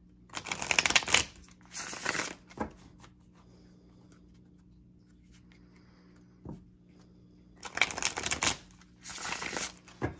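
A deck of tarot cards being riffle-shuffled by hand, four quick riffles in all: two near the start and two more near the end, each a brief rush of flicking cards.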